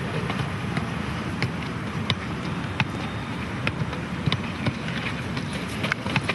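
Football being juggled: short, sharp taps of the ball off foot and knee, roughly one every half-second to second, over a steady background hiss.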